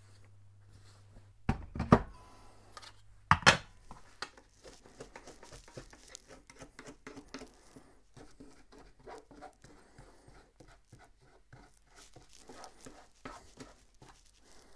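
Two sharp knocks in the first few seconds, then faint, irregular crackling from brown sugar heating and starting to melt in a dry, ungreased pan on the stove.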